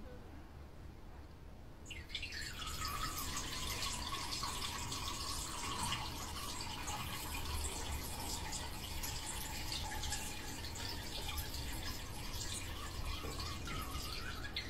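Kitten urinating into a plastic toilet-training tray set in a toilet bowl: a steady trickle of liquid that starts about two seconds in and stops near the end.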